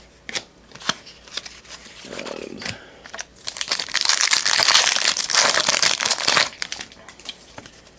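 A 2014 Panini Prestige football card pack's wrapper being torn open and crinkled, a dense rustle lasting about three seconds from near the middle, after a few light clicks of cards being handled.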